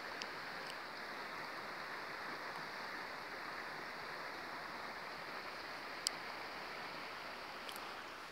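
Steady rush of flowing creek water, with a faint click about six seconds in.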